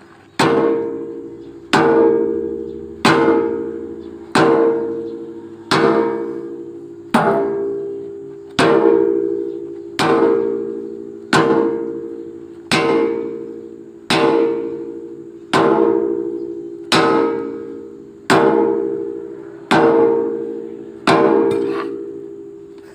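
Heavy hammer blows on steel, struck at a slow steady pace about every second and a half, each blow ringing out and fading: hammering a new pin-and-bushing fitting into an excavator bucket joint.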